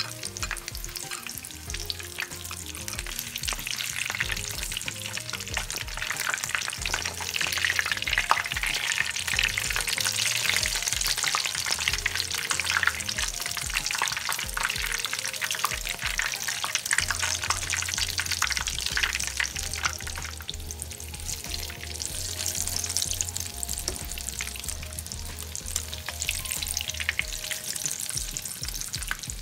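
Tortang talong, eggplant coated in beaten egg, sizzling and crackling as it fries in hot oil in a pan.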